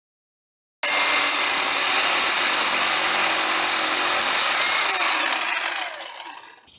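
Black & Decker LCS1020 20-volt cordless electric chainsaw starting abruptly and running at a steady speed with a high whine, then released about five seconds in and spinning down, the whine falling in pitch as it fades.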